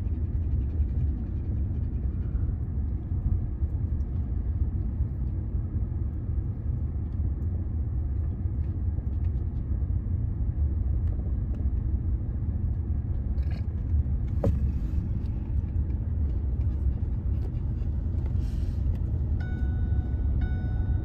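Steady low rumble of a vehicle's engine and tyres, heard from inside the cabin while driving. Near the end a short electronic chime starts repeating.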